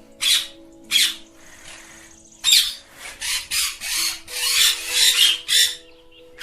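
Ringneck parakeets giving harsh, rasping squawks: two short squawks in the first couple of seconds, then a quicker run of about eight in the second half.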